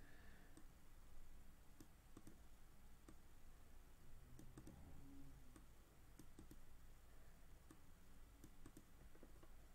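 Near silence with scattered faint clicks of a computer mouse over a low, steady room hum.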